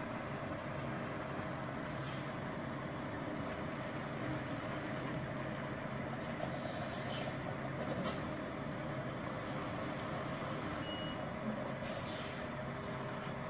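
Semi truck's diesel engine running steadily as the tractor-trailer maneuvers slowly, with short hisses of air from the air brakes about three times, around the middle and near the end.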